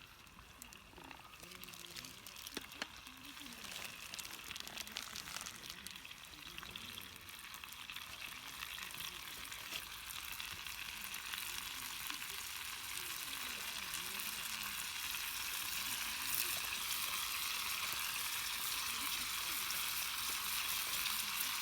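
Food frying in a pan, a fine crackling sizzle that grows steadily louder as the pan heats up.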